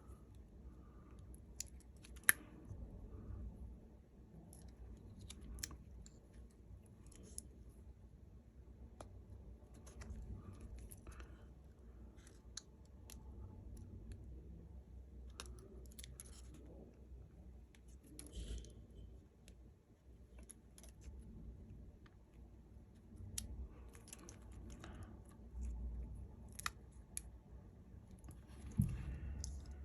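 Faint, scattered small clicks and taps of tools and small parts handled on a phone being reassembled, over a low steady hum.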